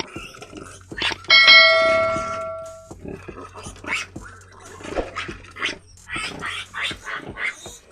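Piglets squealing and grunting in short, repeated cries. A single bell-like chime rings out about a second in and fades over a second and a half, over a low steady hum.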